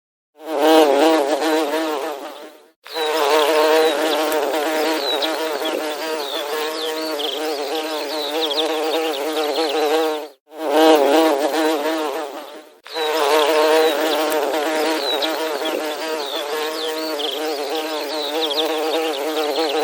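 Bees buzzing: a steady, wavering hum in four stretches with short breaks between them, a short stretch and a long one, then the same again.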